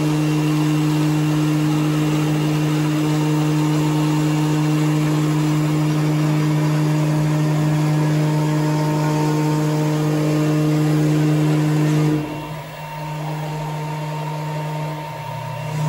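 The spindle of an AMMA Q10 CNC router runs at a steady pitch while engraving plexiglass. About twelve seconds in the tone breaks off and the sound gets quieter. Near the end a lower hum comes in and climbs back to the same pitch.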